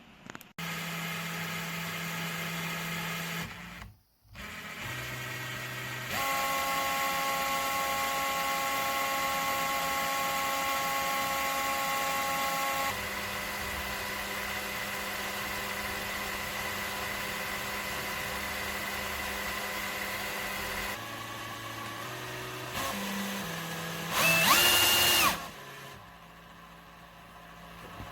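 Cordless drill motor running free at steady speeds in several stretches, stopping briefly about four seconds in and changing pitch as the trigger speed changes, with a louder, higher whine that bends in pitch near the end.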